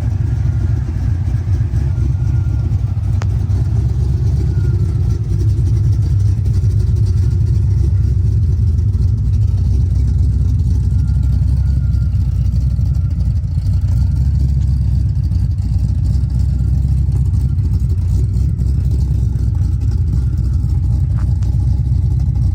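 1967 Pontiac Firebird's 400 cubic-inch V8 cruising in traffic with its exhaust in the assembled, diffuser-closed setup: a deep, steady rumble with slight rises and falls in engine speed.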